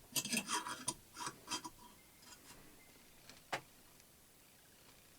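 Light metallic clicks and clinks of a hand tool working a stuck screw on a belt grinder: a quick run of clicks in the first second and a half, then a single sharp click about three and a half seconds in.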